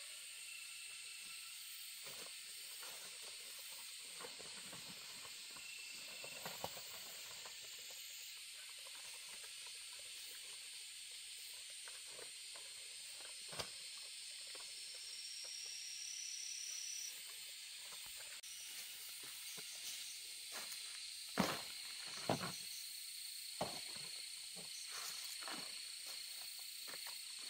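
A steady high hiss, with scattered light clicks and taps and a few sharper knocks late on.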